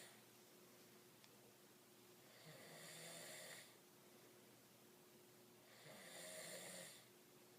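A man snoring in his sleep: two faint snores about three and a half seconds apart, each lasting a little over a second.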